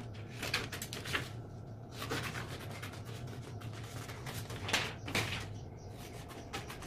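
Pattern paper being handled: faint, irregular rustles and light taps over a low steady hum.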